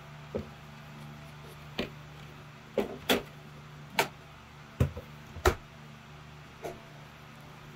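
Scattered knocks and clicks of an opened laptop chassis being lifted, shifted and set back down on a table: about nine sharp taps, the loudest about five seconds in.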